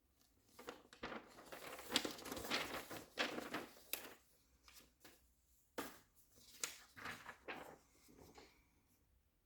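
Unboxing packaging being handled, crinkling and rustling for about three seconds, then a few separate crackles.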